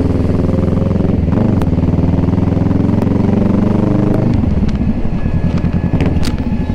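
Kawasaki motorcycle engine on the move: its pitch climbs steadily for about three seconds as it accelerates, then drops about four seconds in as the throttle closes, running lower and choppier after.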